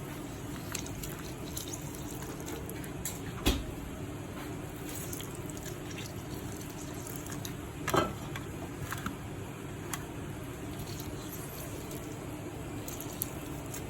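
Quiet kitchen handling sounds over a steady background hum: a few soft knocks and clinks, the clearest about 3.5 and 8 seconds in, with faint liquid sounds, as salmon is seasoned with olive oil, salt, lemon and black pepper.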